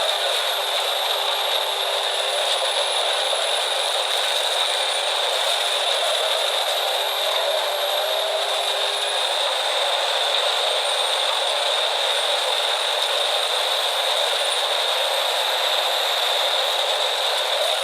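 Machinery running steadily: a loud, continuous rattling din with a steady high whine and a fainter, higher whine that slowly rises and falls.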